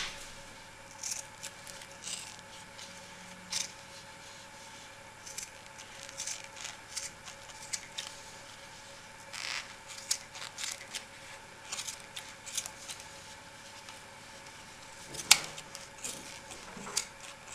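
Red-handled scissors snipping through the fuzzy edge of a wool felt hat: short, irregular cuts, with one sharper snip a little before the end. A faint steady hum sits underneath.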